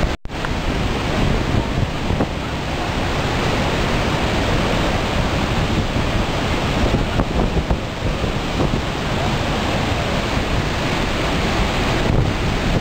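Iguazu Falls: a steady, loud rush of a huge volume of water falling and crashing into the gorge below. The sound cuts out for a split second right at the start.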